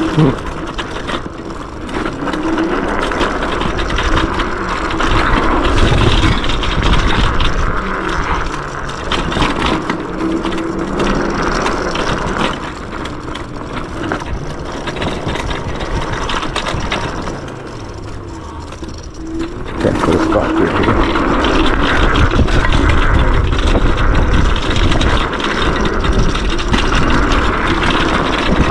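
Yume X11 electric scooter ridden fast down a dirt trail: wind rushing over the microphone with tyre and frame rattle and scrape, surging and dropping with the terrain and easing off for a few seconds past the middle.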